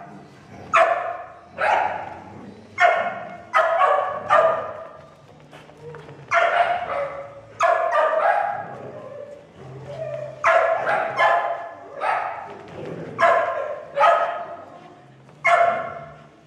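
Dog barking during rough play, about sixteen short, sharp barks in irregular bunches of two or three with brief gaps between.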